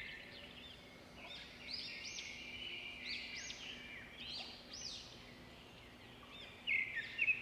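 Birds chirping: clusters of quick, high, arching notes that come and go, louder again near the end, over a faint steady low hum.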